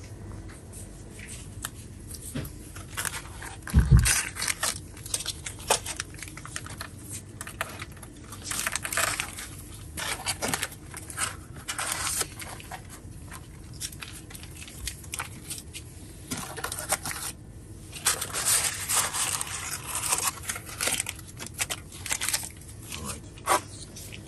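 Irregular rustling and crinkling noises in bursts, with one heavy thump about four seconds in.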